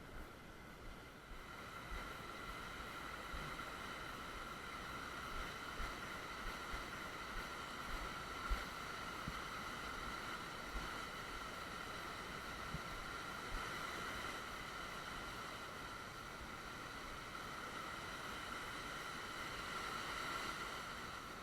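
Small creek running steadily, its water flowing over stones, with a few faint knocks and bumps.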